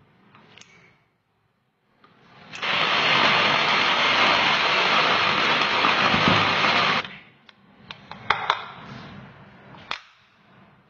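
Small electric food chopper running steadily for about four seconds as it chops leafy greens, then stopping suddenly. A few sharp clicks follow.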